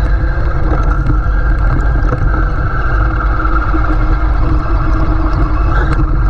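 Traxxas MAXX RC monster truck running, heard on board: a steady electric-motor and gear whine over a heavy low rumble, the whine rising in pitch near the end as the truck speeds up.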